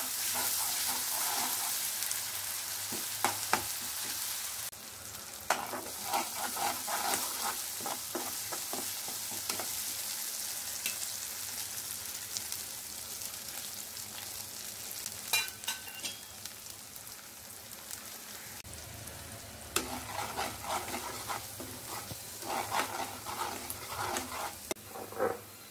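Chopped onion and ginger-garlic paste sizzling in hot oil in a frying pan, with a steady hiss. Several bouts of a perforated metal spatula stirring and scraping against the pan, the longest near the end, with a few sharp clicks of metal on the pan.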